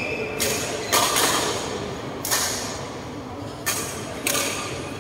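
Sharp racket-on-shuttlecock hits ringing out in a large, echoing sports hall: about five smacks at uneven gaps of roughly a second.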